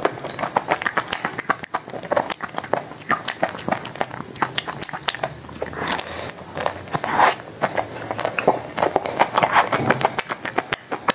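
Close-miked eating sounds from a chocolate-and-nut-coated ice cream bar: the chocolate shell crackling and crunching between the teeth, with wet chewing and smacking clicks. About six and seven seconds in there are longer wet sucking sounds as she licks chocolate from her fingers.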